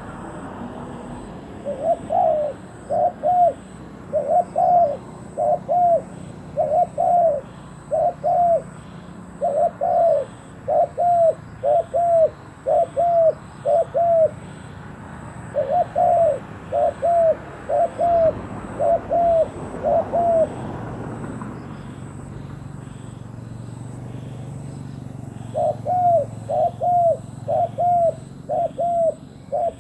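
Spotted dove cooing in repeated phrases, three bouts of coos with short pauses between, over faint chirping of small birds.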